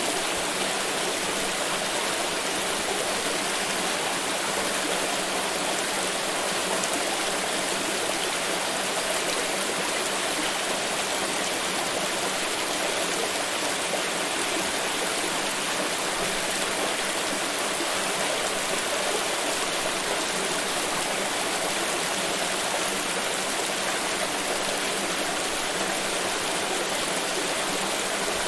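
Flowing water, a steady stream or brook running over rocks with an even rushing sound.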